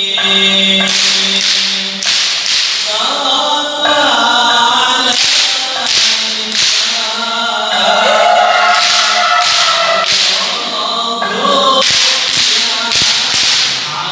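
Young men's voices chanting Arabic sholawat together, with sharp hadrah percussion strikes coming irregularly, often in quick pairs or triples.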